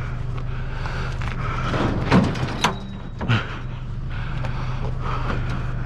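Steady low hum of an idling pickup truck engine, with a few short knocks a couple of seconds in as a heavy piece of scrap metal is pushed and strained at without budging.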